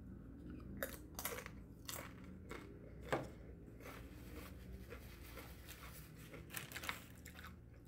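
Tortilla chip being bitten and chewed: a series of irregular dry crunches, the loudest about three seconds in, with softer chewing between them.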